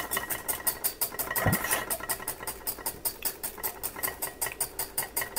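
A wire whisk beating egg yolks and clarified butter in a glass bowl over boiling water, its wires ticking against the glass in quick, even strokes, about seven a second. This is hollandaise sauce being whisked so that it comes together without splitting.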